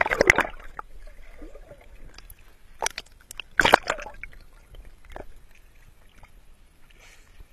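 Sea water sloshing and splashing around a camera as it is dipped under the surface and raised again, with two loud splashing bursts: one at the start and one a little under four seconds in.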